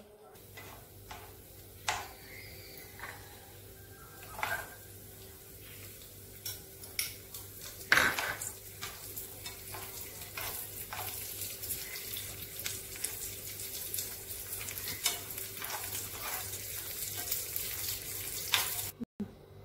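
Cashew nuts and raisins sizzling as they fry in ghee in a pan, with a spoon clicking and scraping against the pan. The sizzle grows stronger partway through, and there is one louder clank about eight seconds in.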